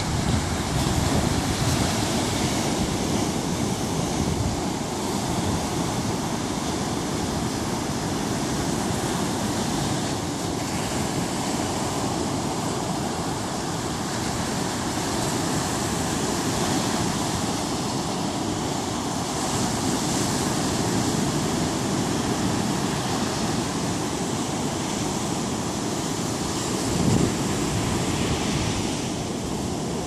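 Big surf breaking and washing up a sandy beach: a steady rush of water noise that swells and eases, with wind buffeting the microphone and a brief louder surge near the end.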